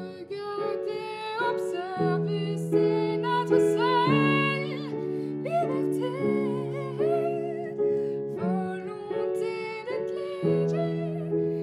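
Slow background music: a gently wavering melody over long held low notes that change every couple of seconds.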